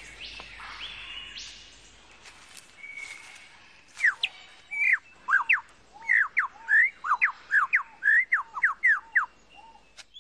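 Superb lyrebird singing: after a few seconds of faint background noise, a rapid string of loud, sharply sweeping whistled notes begins about four seconds in and runs for about five seconds.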